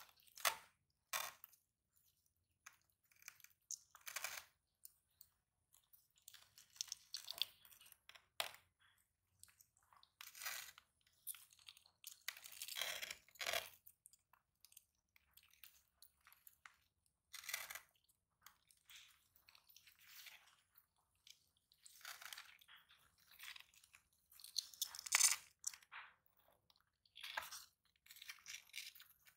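Sulcata tortoises biting and chewing fresh vegetables and watermelon: a run of irregular wet crunches with short gaps between, the loudest a few seconds before the end.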